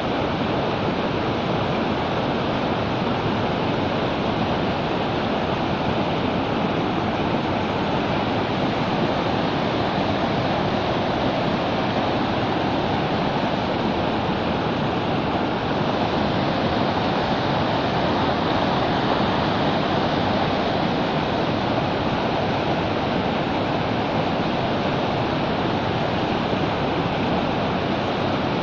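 Muddy river floodwater rushing across a submerged road causeway and pouring over its edge in a churning cascade: a steady, unbroken rush of water.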